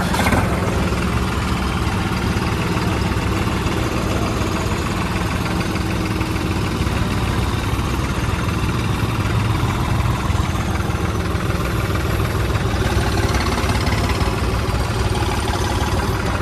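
New Holland tractor's diesel engine running steadily, heard from the driver's seat, with a single click just after the start.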